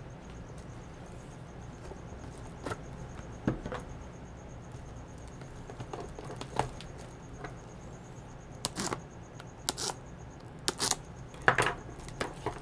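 Handling of boxed disc cases: scattered short clicks and rustles, busier in the second half, over a low steady hum.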